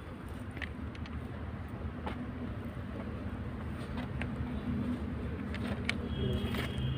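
A machine or engine running steadily with a low drone, with a few sharp clicks; a thin high whine comes in near the end.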